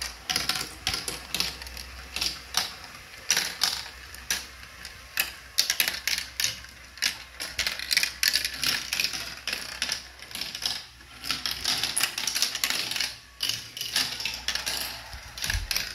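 Plastic marble run with a chain-lift elevator at work: a continuous, irregular clatter of sharp clicks, several a second, as the plastic chain links move and glass marbles tap and roll through the plastic tubes and tracks.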